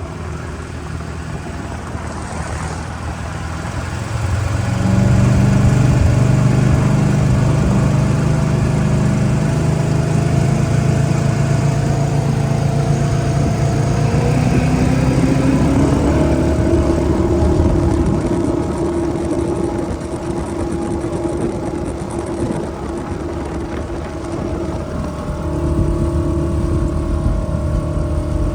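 Jet boat's inboard engine driving a Berkeley jet pump, opening up about four seconds in and running hard, its pitch climbing steadily about halfway through and then holding. It eases a little and comes back up near the end, in a full-throttle run that reaches about 60 mph.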